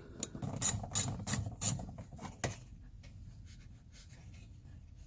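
Ratchet wrench with a 10 mm socket clicking as it backs out a screw holding a car's interior door panel: about eight sharp clicks over the first two and a half seconds.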